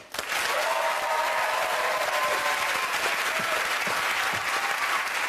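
Studio audience applauding, breaking out right at the start and keeping up steadily throughout.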